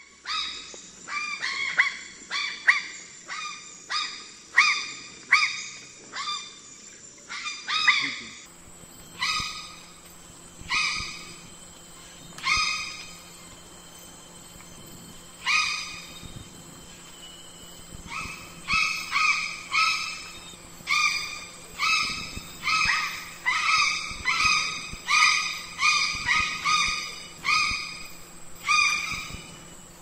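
Grey crow (Corvus tristis, the bare-faced crow) calling: a long series of short calls, at first about one a second, then in irregular runs with a pause in the middle. A faint steady hum lies behind the later calls.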